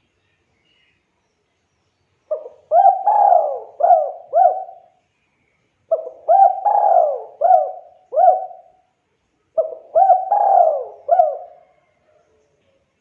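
Spotted dove (tekukur) cooing: three phrases a few seconds apart, each a short note, a longer swelling coo, then two or three quicker coos.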